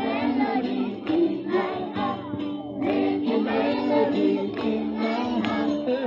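A crowd of children and young people singing together over music, many voices at once.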